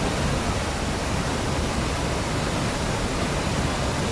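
Waterfall rushing steadily: a dense, even noise with no breaks.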